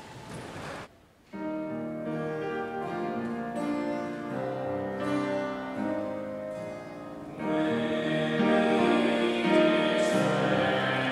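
Church choir singing with instrumental accompaniment. After a short break about a second in, held chords change step by step, and the sound grows louder and fuller about six seconds later.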